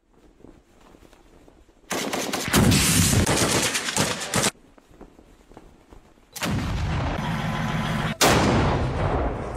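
Automatic gunfire in two long rapid bursts, the first about two seconds in and the second a little past the middle, then a single loud crack near the end that rings out and fades.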